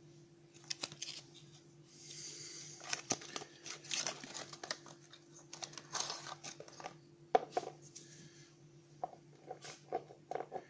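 Crinkling of plastic and cardboard packaging as a small e-liquid box is handled and opened, with irregular crackles and sharp clicks, one of them louder about seven seconds in. Near the end come a few short knocks as the small bottle is set down on a table.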